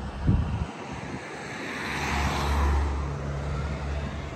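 A car passing along the bridge roadway: its tyre and engine noise swells to a peak a little past halfway, then fades. A brief low thump comes just after the start.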